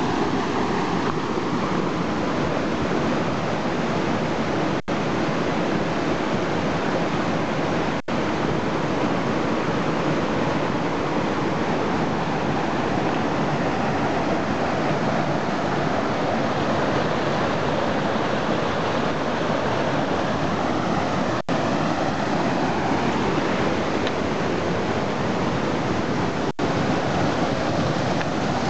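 Steady rush of a fast mountain creek, loud and even, with the sound cutting out for an instant four times.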